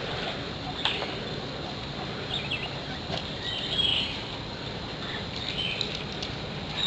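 Scattered short bird chirps, a few in all, over a steady outdoor background hiss, with a couple of brief clicks.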